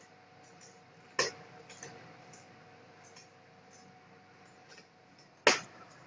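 Cat digging in a hooded plastic litter box: two sharp knocks, about a second in and near the end, with lighter clicks and scratches of litter between.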